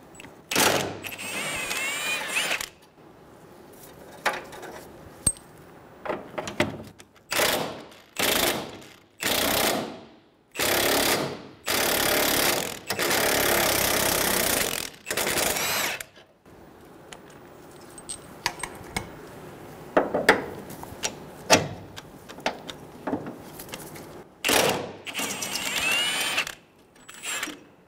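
Cordless power tool on a long socket extension running the engine mount's 15 mm bolts out, in a series of separate bursts of one to three seconds with short pauses between, a rising whine as the motor spins up on a couple of them.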